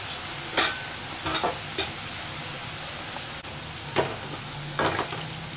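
Boondi, drops of gram-flour batter, deep-frying in hot oil in a metal kadai with a steady sizzle. A perforated metal ladle is stirring through them, giving about five short metal knocks and scrapes against the pan.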